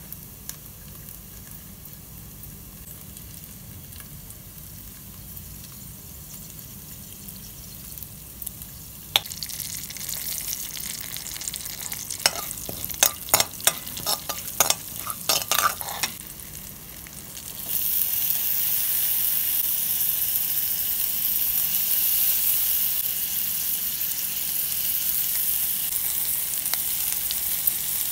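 Tempering in a pan: oil heating with a faint hiss, then cumin seeds crackling and popping in the hot oil from about nine seconds in. A little past halfway a loud, steady sizzle begins as chopped green chillies and curry leaves go into the oil and are stirred with a steel ladle.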